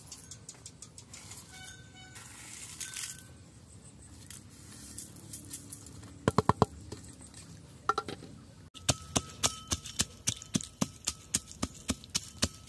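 Pestle pounding dried red chillies and spices in a metal grinding bowl with a ridged inside, a steady run of knocks about three a second that starts past the middle. Before that, a quick cluster of sharp knocks as a plate is tipped against the bowl.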